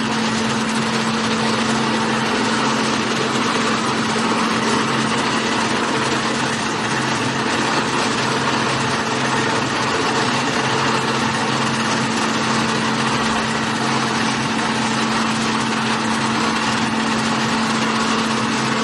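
Steady machine noise from a die-formed hard candy production line, its motors and cooling fans running with a constant low drone under an even whirr.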